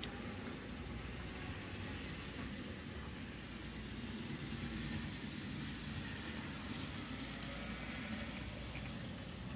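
Model trains running on the layout: a steady whirring rumble of small motors and wheels rolling on the track.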